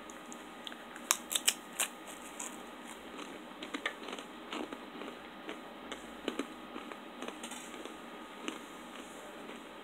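Crunching of a bite taken from a peanut-butter-spread cracker: a few loud, sharp cracks about a second in, then scattered quieter crackles of chewing.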